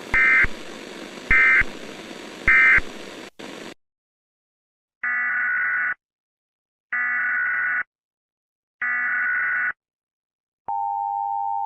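Emergency Alert System data tones: three short end-of-message bursts over a hiss, then near silence, then three longer SAME header bursts about a second apart, each a buzzy digital chirp. Near the end a steady attention tone begins.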